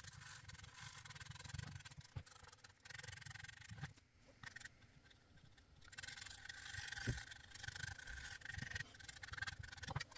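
Black Centropen felt-tip marker scrubbing back and forth over paper tape and the tin pinhole plate, blacking out every light surface. Faint, with a quieter pause about four seconds in.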